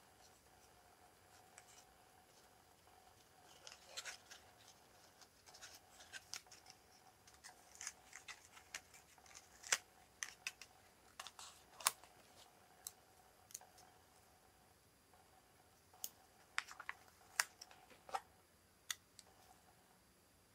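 Faint crafting handling sounds of paper card and ribbon: scattered small clicks, taps and rustles coming in clusters, over a faint steady hum.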